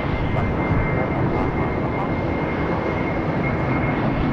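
Boeing 767-300ER airliner's twin jet engines at takeoff power: a loud, steady roar with a thin high whine held at one pitch over it.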